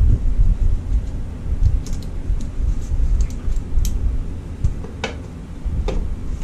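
Scattered small clicks and rattles of wiring and fittings being handled and pushed into place at an engine-bay firewall, over a steady low rumble.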